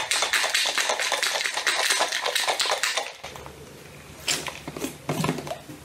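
Ice rattling rapidly inside a closed metal travel mug shaken as a cocktail shaker. The shaking stops about three seconds in, followed by a couple of clicks as the lid is handled.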